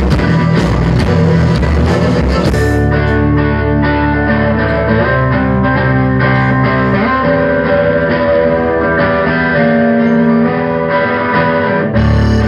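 Rock band playing an instrumental break with no singing. Drums hit for the first couple of seconds, then a guitar carries the tune in long, bending notes over held chords with no drum hits, and the full band with drums comes back in near the end.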